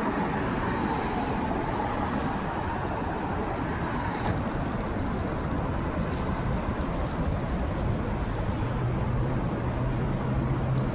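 Steady road and traffic noise during a ride on a Bird electric stand-up scooter, with a low steady hum joining about eight seconds in.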